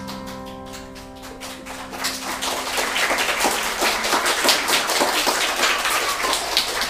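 The final chord of a grand piano rings and dies away. About two seconds in, an audience starts clapping, and the applause builds and carries on.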